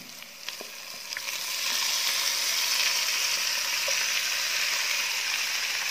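Raw chicken pieces tipped into a pan of frying onions, with a few light clicks at first as they land. Then a steady sizzle in the hot oil swells up a second or two in and holds.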